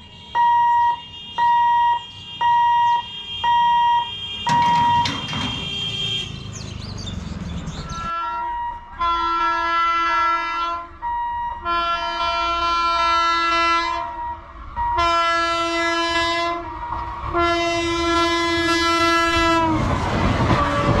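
Level-crossing warning hooter beeping about twice a second for the first five seconds while the boom gates come down. Then an approaching Indian Railways electric locomotive sounds its multi-tone horn in four or five long blasts, and the rumble of the train running over the crossing builds near the end.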